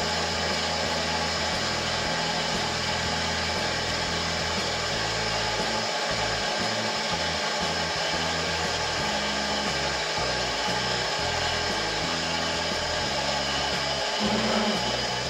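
Optical lens edging and drilling machine running steadily, cutting a high-index 1.74 plastic lens for a rimless frame.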